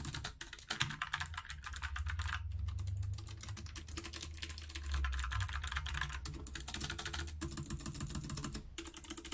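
Rapid typing on a Logitech G915 TKL low-profile mechanical keyboard, a dense run of key clicks in several bursts with brief pauses between them.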